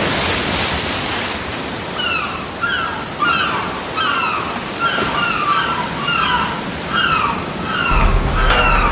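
Surf washing in, with gulls calling over it. From about two seconds in comes a run of short, downward-slurred calls, one or two a second.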